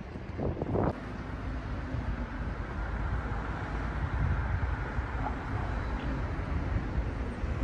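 Steady low outdoor background rumble, with a few brief bumps in the first second.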